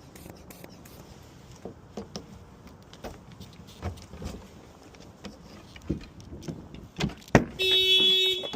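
Small clicks and knocks of work on a 2017 Honda Civic's door lock, then a sharp click a little after seven seconds in. Near the end the car's alarm starts sounding, a loud steady horn-like tone held for about a second, set off by the door being opened without a working key.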